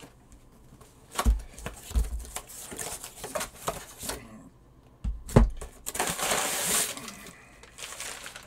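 Cardboard shipping box being handled: a few knocks and thumps as it is turned over, then the crinkling rustle of brown packing paper being pulled out of it about six seconds in.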